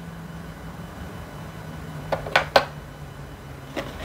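Hard plastic action-camera mounts and a frame housing clicking and clacking as they are handled and set down on a desk: a quick run of three or four clicks about two seconds in and a single click near the end, over a steady low hum.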